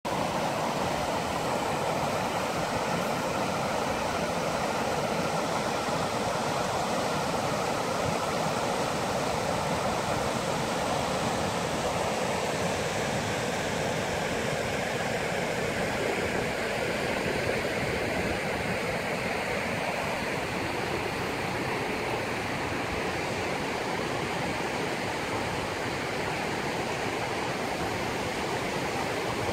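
The shallow Torysa river rushing over stony riffles and small rapids: a steady, even rush of water.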